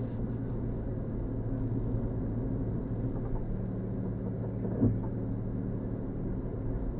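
Car engine running at low speed, a steady low hum, with one short knock just under five seconds in.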